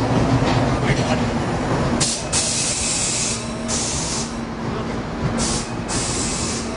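Electric train's air brakes hissing in a series of short blasts of compressed air, starting about two seconds in, over the steady hum and low rumble of a waiting train.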